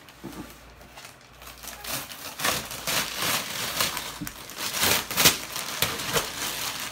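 Plastic wrapping and brown packing paper crinkling and rustling as they are pulled out of a cardboard box, quiet at first and louder from about two seconds in.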